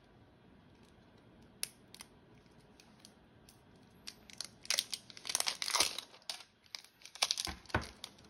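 Clear plastic shrink wrap being torn and crinkled off a stack of trading cards: a sharp click or two at first, then a run of crackling from about four seconds in.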